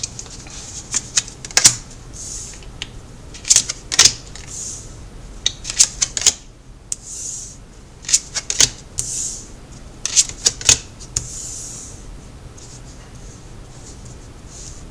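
Tarot cards being shuffled and laid out: clusters of sharp card snaps and taps with soft sliding swishes between them, dying away about twelve seconds in.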